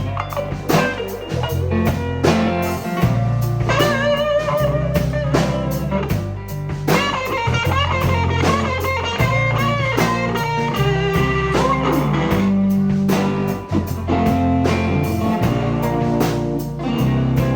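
Band playing an instrumental break in a blues-style song: a lead guitar with bent, wavering notes over bass and a drum kit keeping a steady beat.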